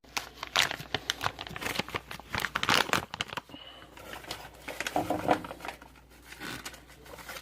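Plastic lure packaging crinkling and rustling as it is handled and pulled open by hand.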